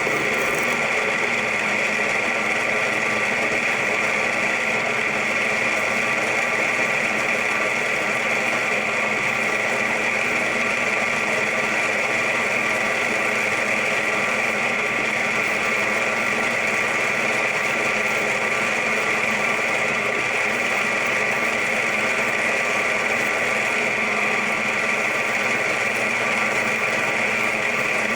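A power tool running steadily without a break, drilling holes in the Z-axis mounting plate of a DIY CNC machine.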